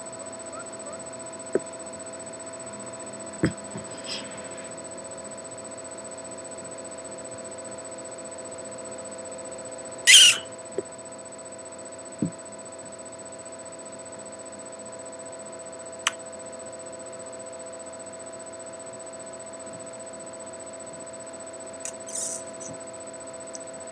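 Steady electrical hum, with a few faint clicks and one short, loud hissing burst about ten seconds in.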